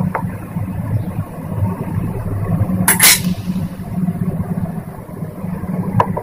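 Kitchen sounds as spices are spooned into a steel pot of meat on a gas stove: a steady low rumble throughout, a sharp clatter about three seconds in, and a couple of light taps near the end.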